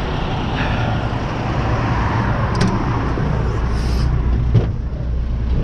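A motor vehicle's engine running steadily with road traffic noise that swells around the middle, and a short click about two and a half seconds in.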